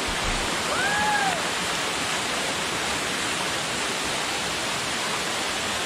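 Waterfall rushing in a steady, even roar of falling water. About a second in, a single short call rises and falls over it.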